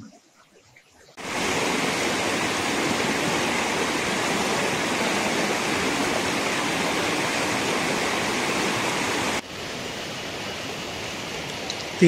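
Mountain stream rushing over boulders in small cascades, a steady loud rush that starts about a second in. Near the end it cuts abruptly to a quieter flow of shallow water running over rock.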